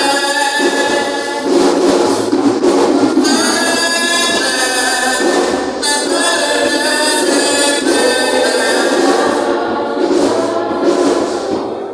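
A small vocal group singing a cappella in a gospel style, amplified through microphones, in phrases of held notes.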